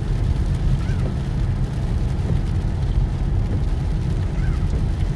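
Steady low drone of a car's engine and tyres on a wet highway, heard from inside the cabin.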